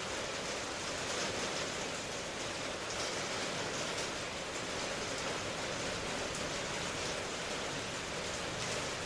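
Steady rainfall, an even hiss with faint patter of drops.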